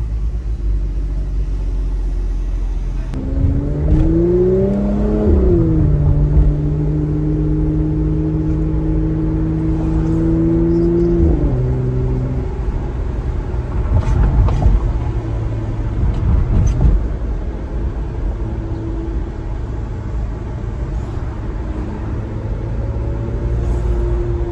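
Mercedes-AMG C43 engine and exhaust heard from inside the cabin: a few seconds in the revs climb for about two seconds, hold steady at one pitch for about six seconds, then drop away, leaving a low road rumble.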